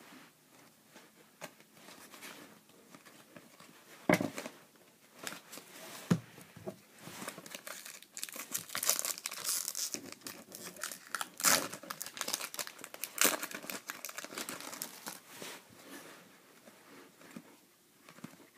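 Foil-lined trading card pack wrapper being torn open and crinkled by hand, with the crinkling densest and loudest in the middle. A couple of sharp snaps come a few seconds in.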